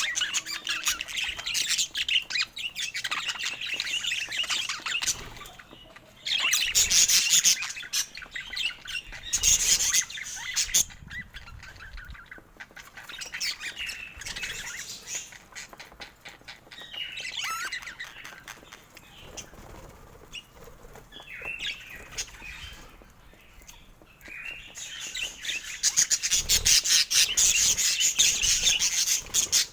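Budgerigars chattering and warbling in bouts of rapid, high chirps, loudest about a quarter of the way in and again near the end.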